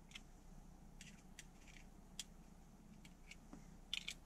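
Faint, scattered plastic clicks and ticks of a flathead screwdriver prising the backing plate off a Vauxhall Zafira's rear interior roof lamp, the loudest a quick double click near the end.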